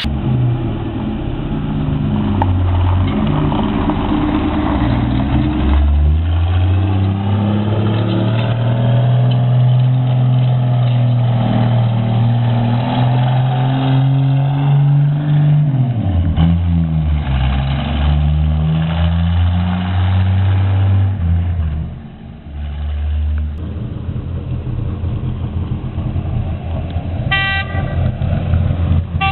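Engine of a miniature semi truck running as it drives, its pitch climbing slowly, then dropping sharply about halfway through. A short horn toot near the end.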